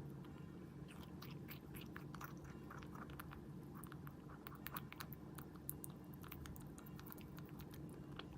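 Netherland Dwarf rabbit munching fruit: a quick, continuous run of small wet crunching clicks. A faint steady hum runs underneath.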